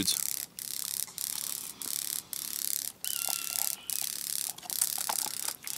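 Grasshoppers crackling in flight, their wings snapping in a rapid dry rattle that sound like firecrackers, coming in bouts with short breaks. A brief whistled tone sounds about three seconds in.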